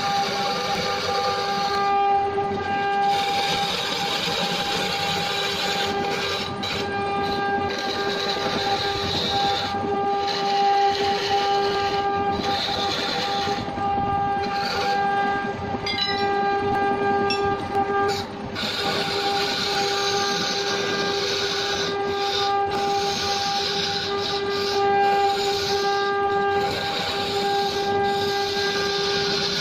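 Electric wood lathe spinning a block of wood while a hand-held chisel cuts into it: a steady humming whine held at one pitch, under a constant rough scraping of the tool on the wood.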